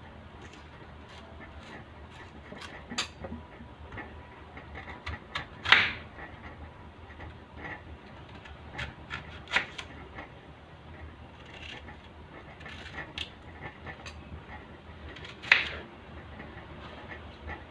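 Kitchen knife peeling and cutting vegetables on a plastic cutting board: soft scraping and small clicks, with sharp knocks of the blade striking the board, loudest about 6 seconds in and again near the end.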